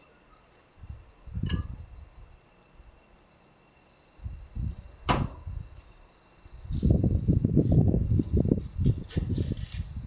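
Steady high-pitched insect chorus, with a sharp knock about halfway through and a run of low thumps and bumps in the second half as the foil-wrapped garlic bread is handled out of the microwave with leather work gloves.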